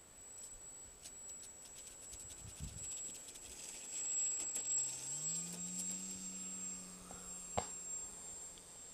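Electric motor of an E-flite Cub RC plane, a high steady whine with a lower hum that rises in pitch about halfway through as the motor spools up. Scattered light clicks in the first half and one sharp click near the end.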